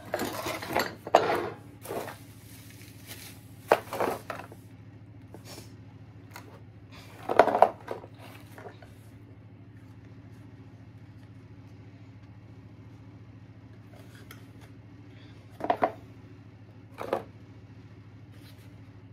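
Small household items and toys being picked up, sorted and set down: scattered clatters and knocks, loudest about a second in, around the middle and twice near the end, over a faint steady hum.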